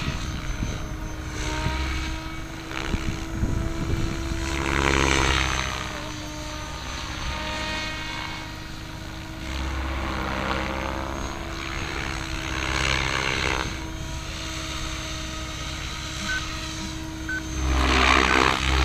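MSH Protos Max V2 radio-controlled helicopter in flight: a steady whine from the motor and drive under the whoosh of the rotor blades. The sound swells about five seconds in, again around thirteen seconds, and loudest near the end as the helicopter passes closer.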